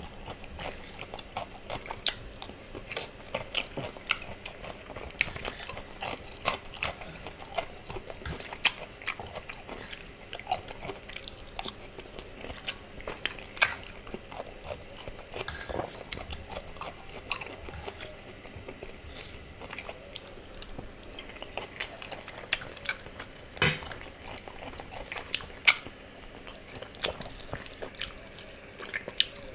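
Close-miked eating sounds: wet chewing and biting of spaghetti, fried plantain and chicken, with a metal fork clicking and scraping on the plate. Near the end, a chicken wing held in the hands is bitten.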